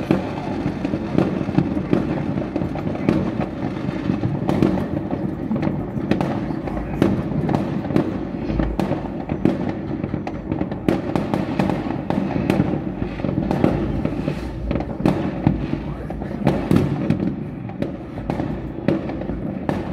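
Many fireworks bursting across a city at once: a continuous barrage of bangs and crackles over a steady rumble, with no pauses.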